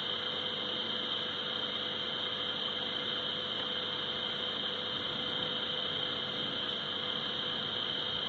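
Steady electronic hum with hiss from a handheld aviation radio's speaker as it receives the VOR test bench's signal on 110.00 MHz.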